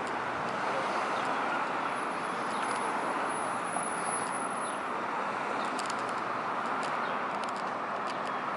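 Steady road-traffic noise at a busy city intersection: an even hiss of passing vehicles with no single one standing out.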